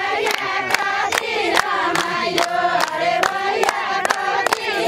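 A group of women singing a ratyauli wedding song in chorus, with steady handclaps keeping time, about two or three claps a second.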